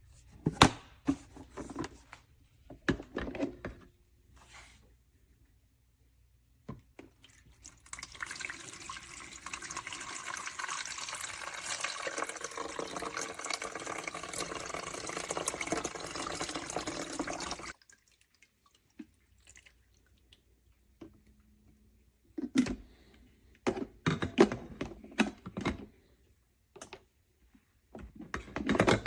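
Several clunks and knocks, then about ten seconds of water running steadily, which cuts off suddenly. More clunks and knocks follow near the end.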